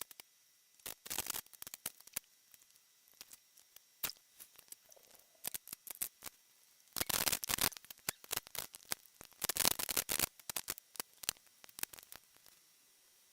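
Rubik's cubes being turned by hand: rapid clicking of plastic layers, in dense runs of clicks with single clicks between.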